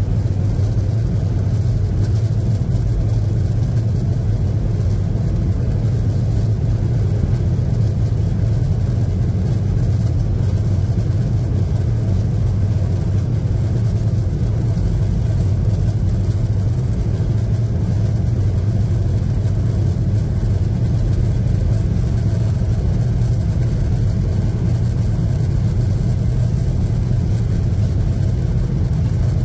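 Boeing 737-800 cabin noise over the wing while taxiing: its CFM56-7B turbofans run at low thrust as a steady low drone, with no build-up of power.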